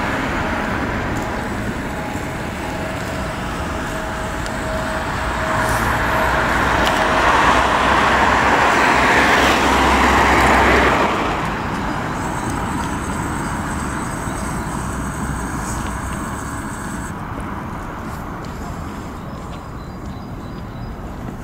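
Road traffic going by: a steady wash of tyre and engine noise that swells as a vehicle passes, loudest about ten seconds in, then drops sharply.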